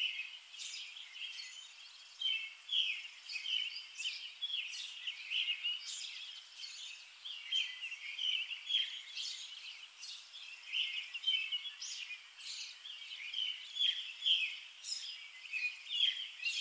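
Small birds chirping: a dense, unbroken run of short, high chirps overlapping one another, with no low sound beneath them.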